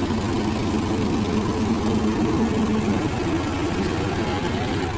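Diesel tractor engines of a Farmtrac 45 and a Sonalika DI 50 Sikander running steadily under load as they pull against each other in a tug-of-war.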